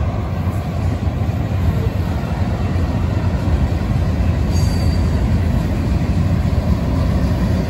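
Freight train cars rolling past close by: a steady rumble of steel wheels on rail, heaviest in the low end, as well cars, a boxcar, a tank car and covered hoppers go by.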